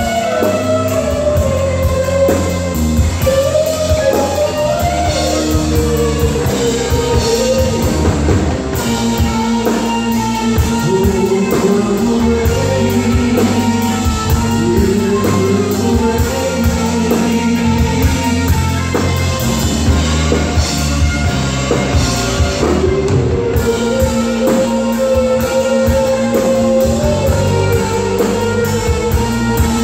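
Live rock band playing an instrumental passage: a lead electric guitar holds long notes that bend up and down over bass guitar and a drum kit.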